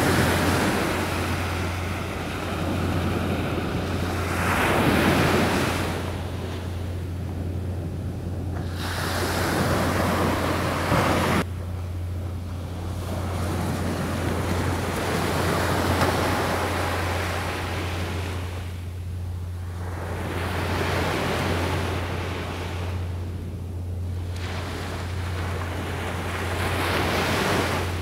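Sea waves breaking and washing up a beach, the surf swelling and fading every few seconds, over a steady low hum and some wind on the microphone.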